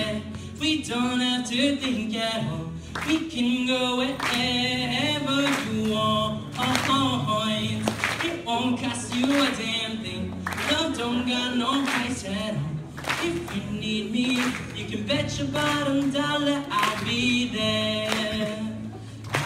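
Male voice singing a song into a microphone, accompanied by a strummed acoustic guitar.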